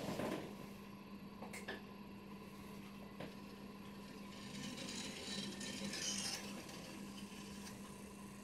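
Faint handling sounds: a few light clicks and a soft rustle, over a steady low hum.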